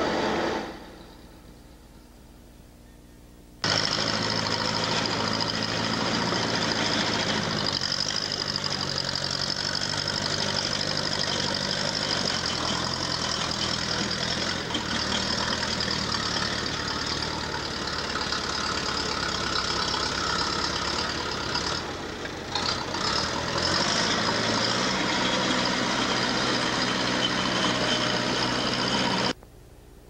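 A large engine running steadily, its pitch stepping down a couple of times and dipping briefly partway through.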